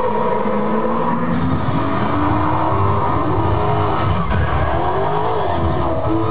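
Car-chase film soundtrack played loud over loudspeakers: engines revving up and down in pitch, with tyre squeal.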